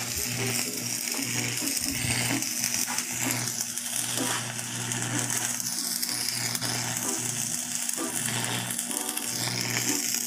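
Electric arc welding on a steel post: the arc's steady crackle and sizzle over the welding machine's low hum, which breaks off briefly several times as the arc stops and is struck again.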